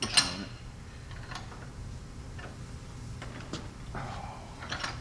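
One sharp knock about a fifth of a second in, then a few light ticks and a brief scrape near the end, as a reusable hydraulic hose end fitting is handled and twisted onto a hose held in a bench vise. A low steady hum runs underneath.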